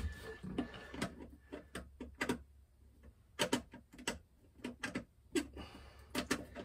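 Small, irregular clicks and taps of a screwdriver working the cable terminal screws of a Victron SmartSolar MPPT solar charge controller by feel, some coming in quick clusters.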